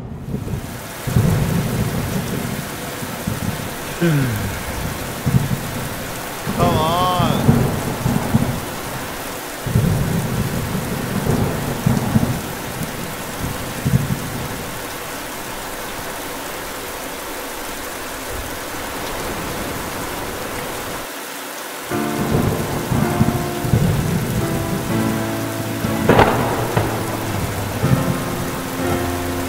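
Heavy rain hissing steadily with rolling thunder rumbling again and again through it.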